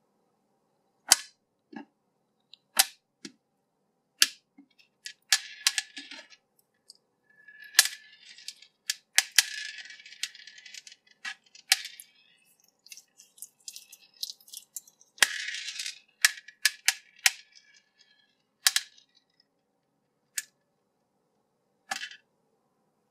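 Sticky slime toy being stretched and squished by fingers: wet crackling and popping in several stretches, with about a dozen sharp clicks, as its small hard bead 'tapioca pearls' drop and tap on the hard table.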